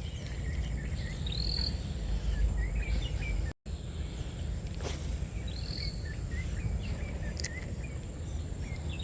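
Outdoor ambience: a songbird repeats a short chirping phrase about every three and a half seconds, over a steady high insect drone and a low rumble. The sound drops out completely for an instant a little over a third of the way through.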